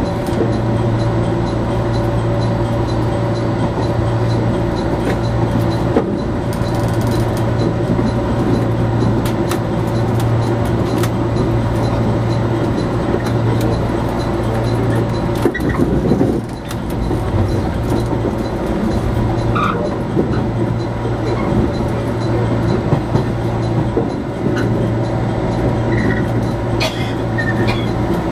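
Ride noise inside a JR 415 series electric train: a steady low hum and rumble of wheels on rail, with scattered clacks as the wheels cross rail joints and points. Brief high wheel squeals come now and then in the second half.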